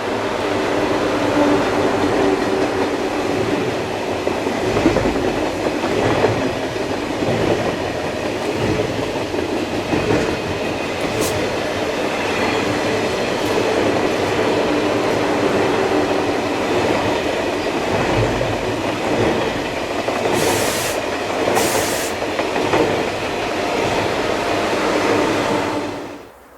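Electric passenger train running past at low speed, a long steady rumble of wheels and cars on the rails with a hum of motors. Two short high hissing bursts come about twenty seconds in, and the sound cuts off abruptly at the end.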